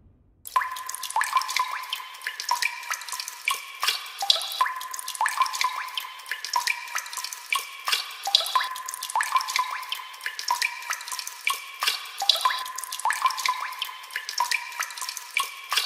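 Water dripping into water: a quick, uneven run of small drops, several a second, each a short ringing plop.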